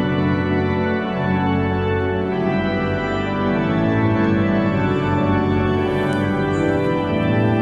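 Organ music playing slow, held chords that change every second or so.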